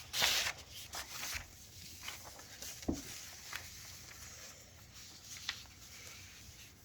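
Paper being handled and rustled on a table, with a sharp crinkle near the start, scattered small rustles and clicks, and a light knock about three seconds in.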